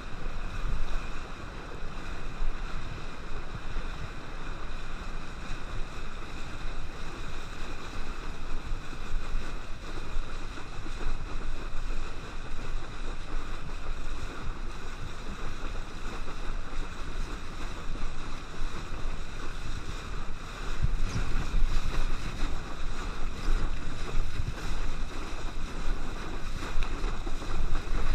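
Steady rush of water and wind with a towboat's engine running. About 21 seconds in it grows louder and rougher as the boat pulls the kneeboard along and water churns under the board in the wake.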